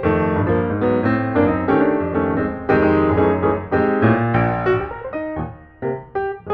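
Background piano music: a quick, continuous run of notes that thins out briefly about five seconds in.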